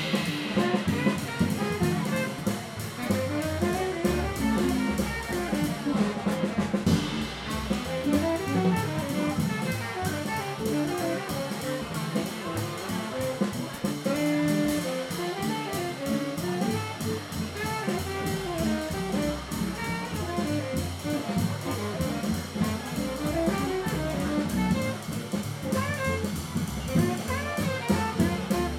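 Live jazz: a saxophone plays a wandering melodic line over a drum kit keeping time, with no break.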